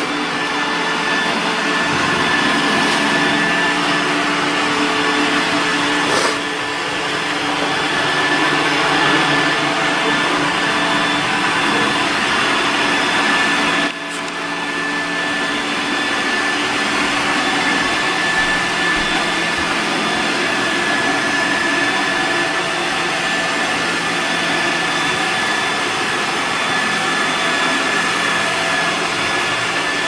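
iRobot Roomba 960 robot vacuum running as it cleans a hardwood floor: a steady whir of its suction fan and brushes with a constant high whine over it. The sound dips briefly twice.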